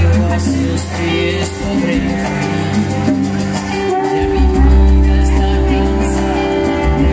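Live salsa band playing loud, with a heavy bass line and hand percussion under a male lead singer.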